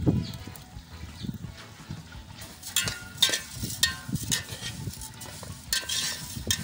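Vermicelli frying in ghee and oil in an aluminium pot, stirred with a metal spoon that scrapes the pot in short strokes over a light sizzle. The scrapes come mostly in the second half.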